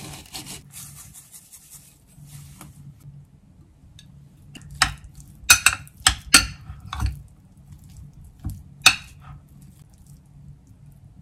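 A hand grinder grinding seeds over rice at the start and again about two seconds in, then a metal spoon clinking sharply against a glass container about seven times as rice is stirred.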